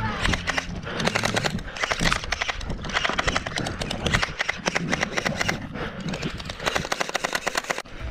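Electric gel ball blaster firing in rapid bursts, a fast clatter of clicks and pops.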